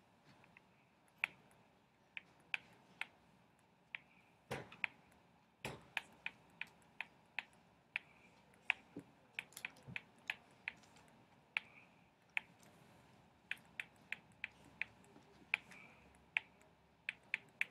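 Pen tip tapping and scratching on a writing surface while handwriting: irregular sharp clicks, roughly two a second, with a few brief soft scratches between them.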